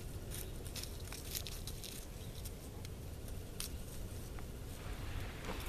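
Dry fallen leaves and grass crackling and rustling underfoot in irregular crunches, with a brief louder rustle near the end, over a low steady rumble.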